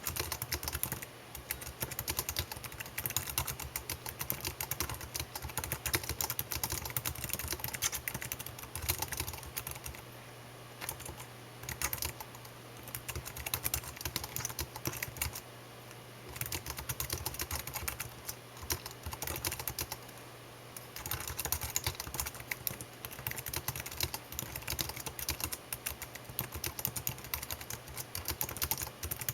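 Typing on a computer keyboard: rapid key clicks in long flurries, with short pauses about ten, fifteen and twenty seconds in.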